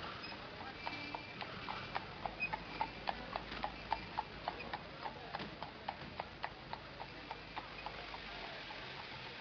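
Dubbed clip-clop sound effect: a steady run of hollow knocks, about four a second, that grows louder toward the middle and then fades away.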